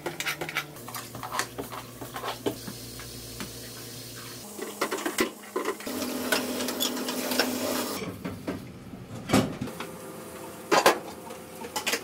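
Metal clinking and knocking as blackened metal parts are handled in a steel pot in a stainless steel sink. A spray tap runs water onto them for a few seconds midway, their first rinse in hot water.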